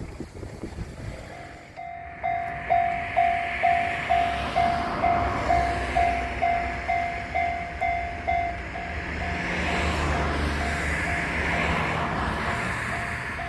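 Japanese railway level crossing's warning bell ringing about twice a second, starting about two seconds in. From about ten seconds in it is joined by the low rumble of a train passing.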